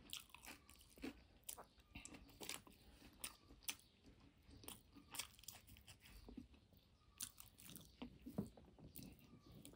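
Faint chewing and crunching of a person eating noodles and boiled egg, heard as many short, irregular mouth clicks.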